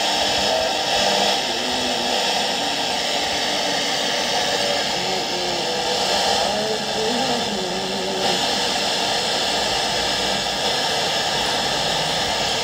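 Old Ramsons multiband transistor radio giving out loud, steady static hiss with a weak voice faintly audible under the noise, as from a poorly received station.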